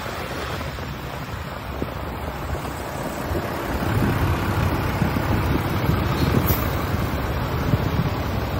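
Strong wind buffeting the microphone, a rough low rumble that gusts harder from about four seconds in.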